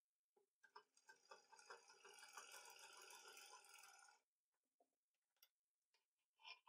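Faint sewing machine stitching a seam: a fast, even run of needle ticks for about three and a half seconds that then stops. A few clicks follow, and near the end scissors begin snipping through the fabric.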